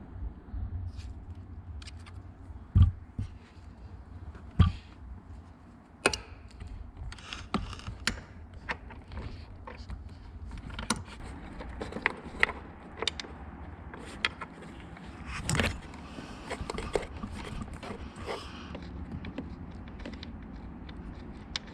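Irregular clicks, taps and knocks of hand tools and metal fasteners being handled while working on a car door hinge, with two louder thumps in the first five seconds.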